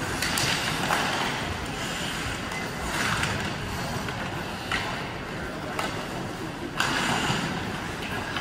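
Ice hockey game sounds in an arena: skates scraping the ice under a steady background noise, with several sharp knocks of sticks, puck or boards scattered through.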